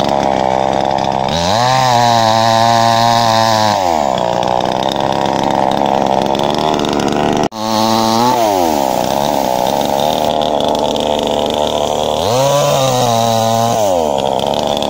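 Two-stroke chainsaw engine revving up, holding high, then dropping back to idle, twice. The sound breaks off for an instant about halfway through.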